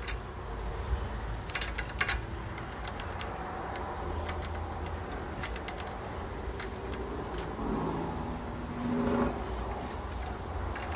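Scattered light metal clicks and rattles as valve-train parts on an 18 hp Kohler mower engine are wiggled and turned by hand, one of them with a lot of play. A steady low hum runs underneath, and a brief low tonal sound comes in about eight seconds in.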